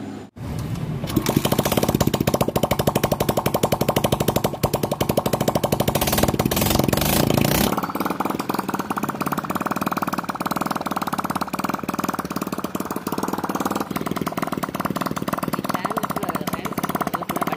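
Freshly rebuilt TVS XL 100 single-cylinder four-stroke engine running, with fast, even firing pulses. It runs at a raised speed at first, then drops to a steadier idle about eight seconds in.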